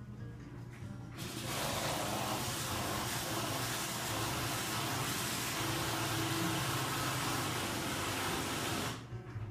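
A loud, steady rushing hiss that starts suddenly about a second in and cuts off abruptly near the end, over quiet guitar music.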